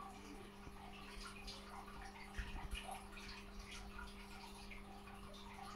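Aquarium filter running: a faint steady hum with water trickling and bubbling.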